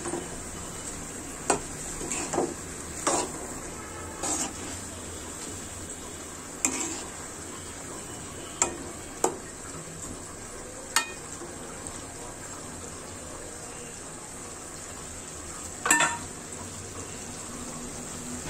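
A metal spatula stirs and scrapes a wet chickpea and vegetable curry in a metal karai. It strikes the pan about nine times at irregular moments, the loudest knock coming near the end, over a steady sizzle from the simmering pan.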